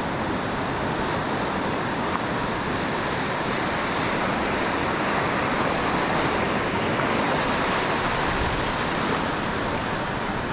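Ocean surf washing in over a sandy shore: a steady rush of breaking waves and foam, swelling a little midway.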